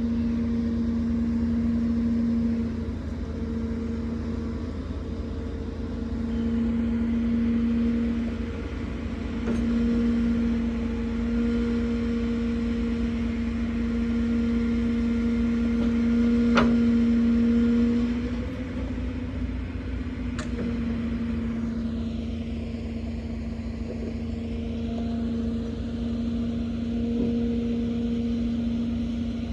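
Truck-mounted crane working: the truck engine and crane hydraulics run with a steady humming tone that swells and eases every few seconds as the crane is operated. Two sharp clicks come past the middle.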